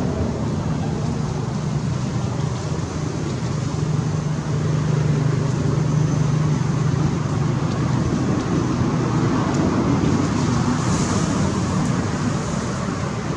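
Steady low hum of a motor vehicle engine over a wash of outdoor noise, growing louder about four seconds in and easing off near the end.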